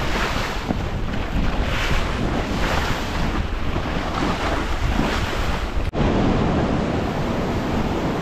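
Wind buffeting the microphone over the rush and splash of sea waves around a sailing jangada. About six seconds in the sound breaks off for an instant, then the wind and surf noise goes on.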